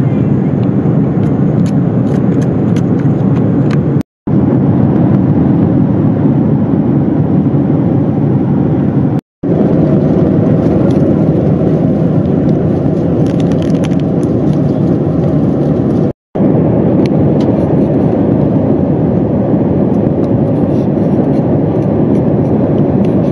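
Steady cabin noise of a Boeing 787-9 airliner in flight, loud and even, with a few faint clicks and rustles of a packet being handled. It drops out to silence three times, briefly.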